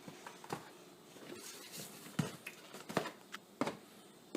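Several light knocks and clatters, spaced irregularly, of household items being handled and set down while things are cleared from under a kitchen sink; the sharpest come in the second half.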